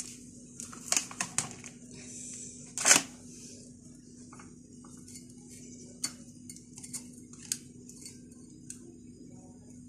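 Metal ice cream scoop scraping through frozen ice cream and clicking and knocking against plastic tubs and a glass, in short irregular strokes; the loudest knock comes about three seconds in.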